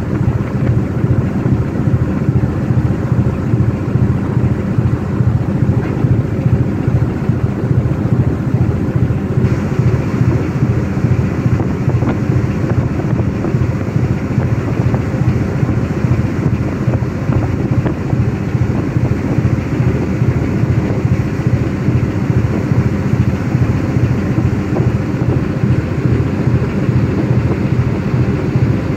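Fishing trawler's diesel engine running steadily, a constant low drone with no change in speed, heard on the open deck.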